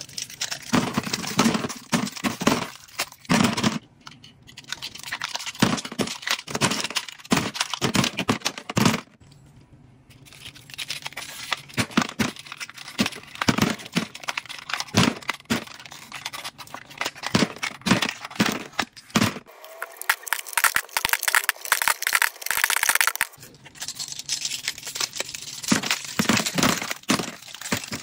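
Plastic lip gloss tubes and lip balm packages clacking and tapping as they are handled and dropped into a plastic storage bin, with plastic wrappers crinkling. About two-thirds of the way through, a few seconds of steady crinkling of cellophane wrap with no clacks.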